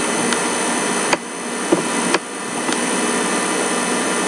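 Steady whirring machine hum with a few constant tones, dipping briefly twice, with a few faint clicks.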